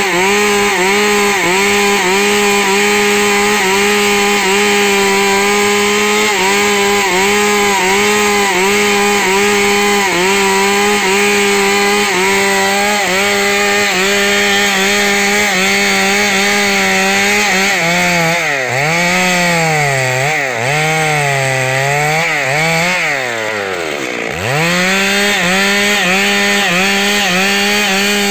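Stihl two-stroke chainsaw running at full throttle while cutting through a wood block, its engine note dipping slightly in a regular rhythm as the chain bites. About two-thirds of the way through, the throttle is eased off and opened again several times, once dropping nearly to idle, before it runs back up to full speed.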